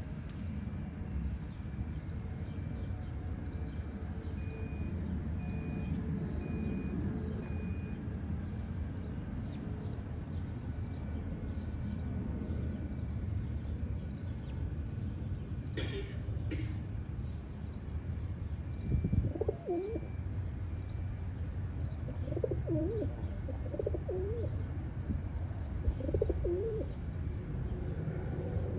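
Feral rock pigeon cooing: four low, warbling coos in the second half, over a steady low background rumble.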